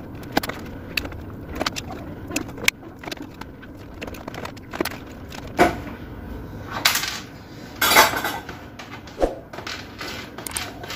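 Irregular small clicks, taps and metallic clinks of tools against a circuit board as old push-button switches are desoldered and pried off, with two short rasping scrapes a little past halfway.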